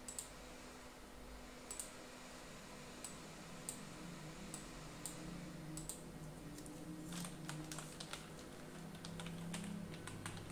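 Faint single clicks about a second apart, then from about seven seconds in a quick run of keystrokes on a computer keyboard.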